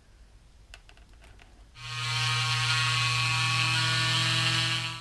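A few light clicks, then about two seconds in a handheld electric power tool starts and runs at a steady speed with an even hum, cutting off suddenly.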